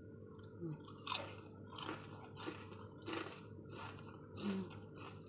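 Someone biting into and chewing crispy homemade potato chips: a run of sharp, crisp crunches, irregular at about two a second.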